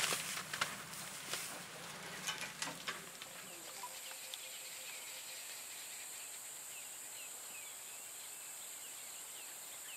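A few sharp clicks and rustles at first, then insects droning steadily at a high pitch in the bush, with faint short chirping calls repeating over them.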